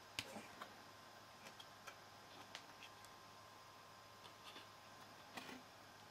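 Near silence: faint room hiss with scattered small clicks and ticks, the sharpest shortly after the start and a short cluster near the end.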